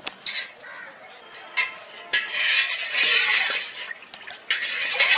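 Steel spoon clinking against an aluminium pot and stirring milk in it, with a few sharp clinks early and two longer stretches of stirring and sloshing from about two seconds in.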